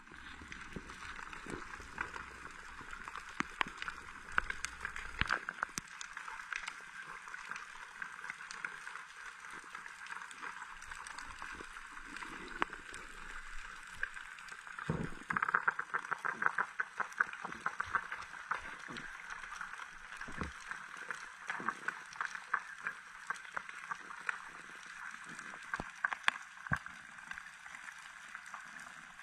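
Underwater reef ambience: a steady dense crackle of tiny clicks, typical of snapping shrimp, with a few louder knocks.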